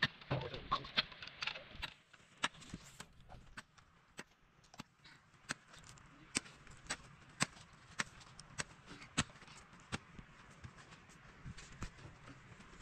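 Pickaxe striking hard, stony ground: a run of sharp clinking impacts, roughly one every half second to a second.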